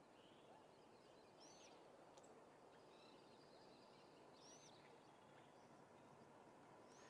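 Faint outdoor ambience: a soft steady hiss with small birds chirping in the distance, short hooked high chirps about every three seconds.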